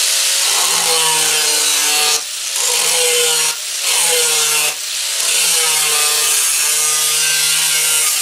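Electric angle grinder with a cut-off wheel cutting through rusty steel fender sheet metal: a loud steady whine and hiss that dips briefly a few times as the cut goes on.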